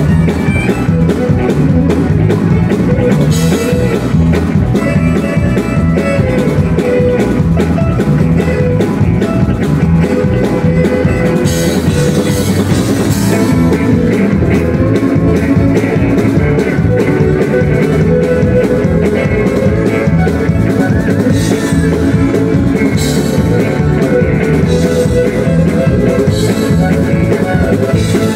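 Live country band playing with a fiddle taking the lead over guitar, bass and drums, with a steady beat.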